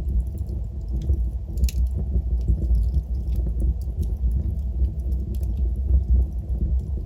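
Wood fire crackling in a fireplace: irregular sharp pops and snaps, one stronger pop about two seconds in, over a steady low rumble of the burning fire.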